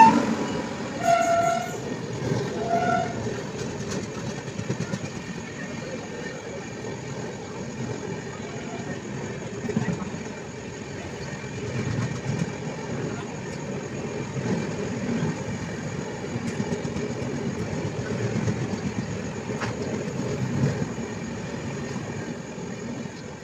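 Moving passenger train heard from inside the coach: a steady rumble of wheels on the track with uneven rail clatter. Just after the start, two short horn toots sound.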